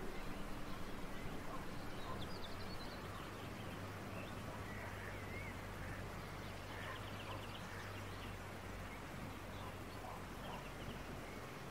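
Quiet outdoor ambience: faint, scattered bird chirps over a low steady hum.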